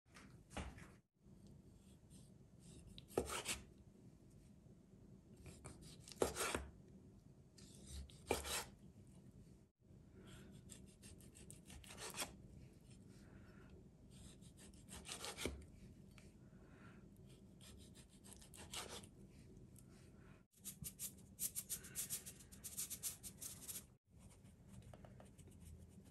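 Chef's knife cutting raw chicken breast on a bamboo cutting board: separate slicing strokes a few seconds apart, each ending in a sharp knock of the blade on the board, then a quick run of rapid strokes near the end.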